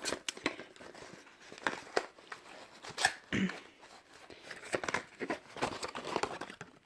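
Packaging being handled: irregular crinkling and rustling with scattered sharp clicks, as wrapping or a box is opened.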